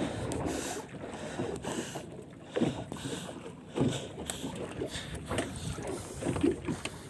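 Wind buffeting the microphone over the noise of a small fishing boat at sea, with irregular knocks and handling sounds as the longline and catch are worked.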